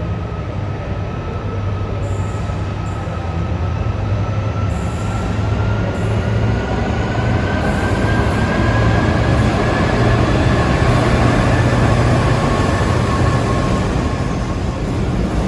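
A train running through the station, getting louder over the first ten seconds or so, with a steady low hum. A thin high whine rises slightly in pitch and fades out near the end.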